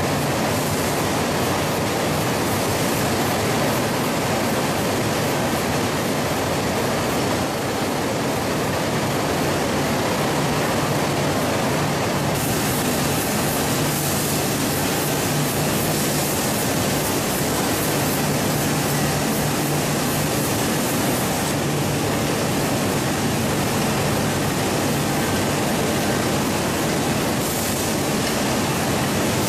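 Steady, dense noise of a poultry processing line running: machinery and conveyor noise with a low hum. The hiss grows brighter about twelve seconds in and drops back about nine seconds later.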